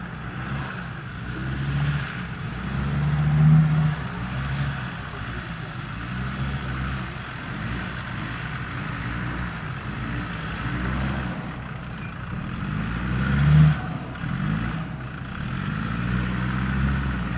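Off-road 4x4 engine revving up and falling back again and again under load, with two loud rev peaks, one a few seconds in and one about two-thirds through.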